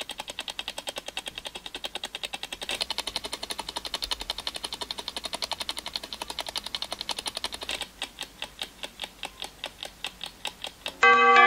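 Clock ticking sound effect: fast, even ticks at about ten a second, slowing to about four a second late on. Just before the end, a bell strikes loudly and keeps ringing.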